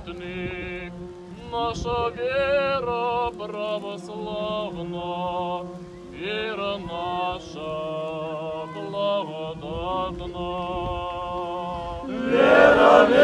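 A slow Orthodox hymn sung as one melody line with vibrato and long held notes. Near the end a crowd of voices joins in, much louder.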